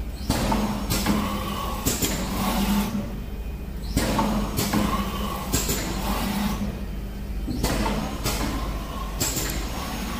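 Hoystar semi-automatic flat screen printing machine running through its print cycle. Bursts of hissing and sharp knocks over a low hum repeat about every four seconds, with short quieter pauses between cycles.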